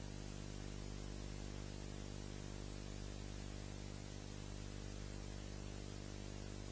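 Steady electrical hum under an even hiss, the empty soundtrack of a silent film excerpt; no scraping of the material itself can be heard.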